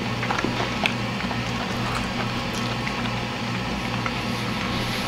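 A person chewing a mouthful of pizza calzone close to the microphone, with small wet mouth clicks, over background music with a steady low bass line.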